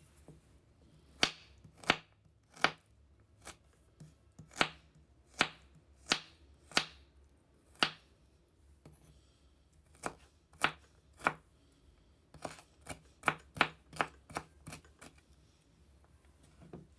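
Knife chopping on a cutting board in single sharp strokes, slow and uneven at first, then a short pause, then a quicker run of chops.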